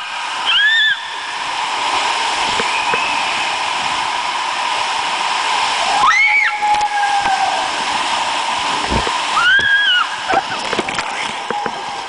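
Water rushing and sloshing under a tube riding down an enclosed water-slide tube, with high-pitched screams that rise and fall several times, at about a second in, midway and near the end.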